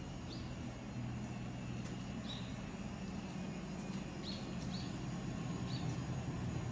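A steady low engine drone that grows slightly louder, with a small bird giving a few short high chirps over it.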